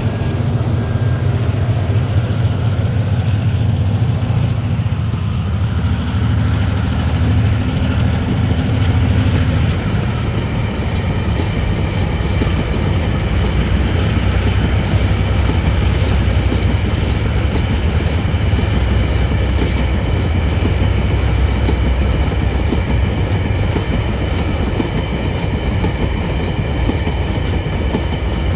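TasRail DQ-class diesel locomotives running as they pass, their engine hum giving way after about ten seconds to the rolling clatter of a long rake of empty ore wagons. From about twelve seconds in, a steady high-pitched squeal sits over the rolling noise.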